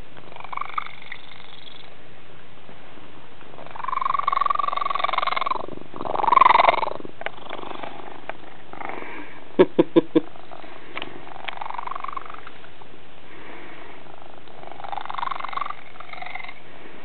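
Orange tabby cat purring with a strange, rumbling purr that breaks into several drawn-out pitched calls, one of them falling in pitch; to its owner it sounds like the Predator. About ten seconds in come four quick sharp clicks, the loudest sounds.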